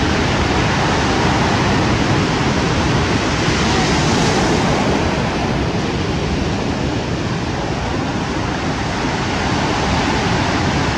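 Sea surf breaking and washing along the shore, a steady rush of waves that swells briefly about four seconds in.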